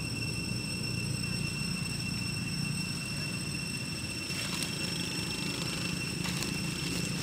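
Steady background drone: a constant high-pitched whine over a low hum, with a few brief rustling or handling noises in the second half.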